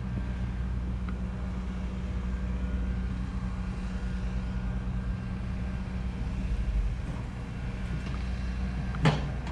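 A diesel truck engine idling steadily, with a short sharp knock near the end.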